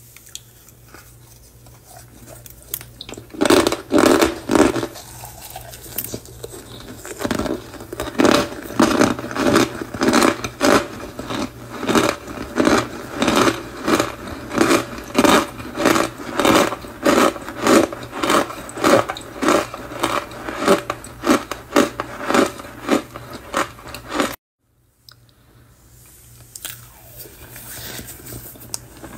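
Fingers squeezing and pressing into packed cornstarch, a steady run of crisp crunches about two a second. It cuts off suddenly about 24 seconds in, then goes on as softer, quieter crunching.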